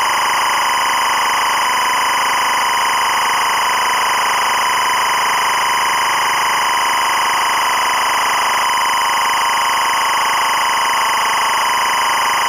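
EBU linear timecode (LTC) audio at 25 frames per second: a steady, loud, high-pitched electronic buzz that warbles slightly as the encoded bits change. It carries a continuously running timecode count.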